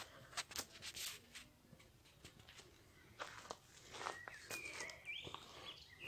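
Faint footsteps on a stony path, irregular, bunched early on and again midway. A bird gives a short call that glides up and down in pitch in the second half.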